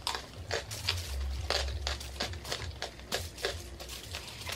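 Eating sounds at a table: a steady run of short crackles and clicks as aluminium foil trays crinkle under hands picking up rice, and crispy pork belly is chewed.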